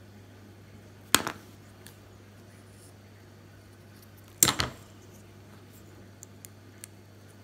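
Scissors snipping heat-shrink tubing on soldered power leads: a sharp snip about a second in, then another sharp clack about three seconds later, with a few faint light ticks from handling near the end. A faint steady low hum runs underneath.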